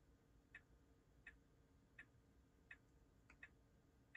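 Tesla Model 3 right turn-signal indicator ticking faintly and evenly, about one click every 0.7 seconds, with a quick double click a little over three seconds in; the signal is being held on with the stalk.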